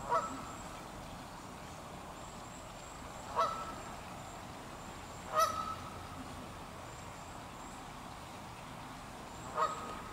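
Waterfowl calling: four short calls a few seconds apart over steady background noise.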